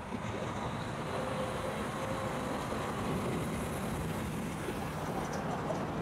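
Steady, heavy road traffic noise, a continuous wash of passing vehicles.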